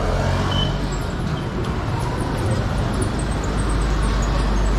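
Street traffic: motorcycles and other motor vehicles running along the road, over a steady low rumble that grows louder near the end.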